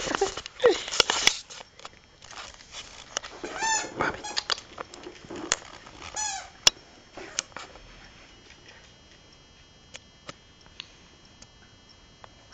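Cairn terrier puppies at play with a toy: a burst of loud, high yelping in the first second, then a few short high squeaks about 4 and 6 seconds in among light pattering and clicks. From about 8 seconds on there are only faint scattered ticks.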